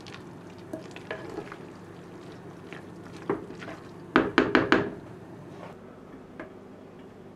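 A spatula stirring and scraping cooked rice inside a terracotta pot, with small scattered clicks and a quick run of four sharp knocks of the utensil against the clay pot a little after four seconds in.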